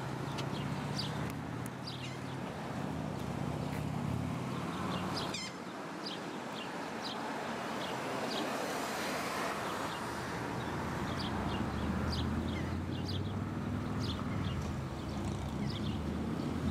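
Small birds chirping in short, high notes again and again, over a steady hiss and a low engine hum that is heard in the first few seconds and again in the last few.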